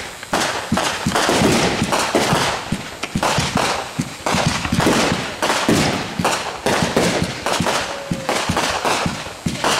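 Aerial fireworks bursting overhead: a fast, dense string of bangs and crackles, many overlapping, with hardly a pause.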